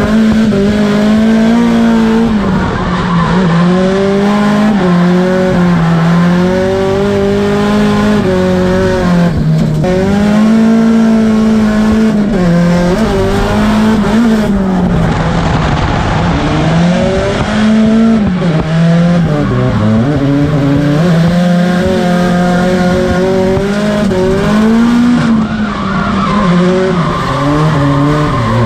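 Onboard sound of a drift car at full attack: the engine is loud and its pitch swings up and down over and over, every second or two, as the throttle is worked through the slides, with tyres squealing underneath.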